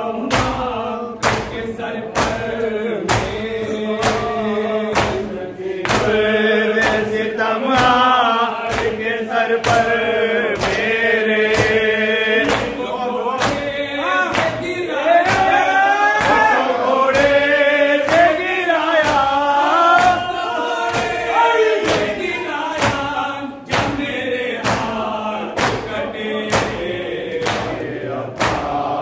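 A group of men chanting a Shia nauha (lament) in unison, with the steady beat of matam, open-handed slaps on the chest, a little over one a second.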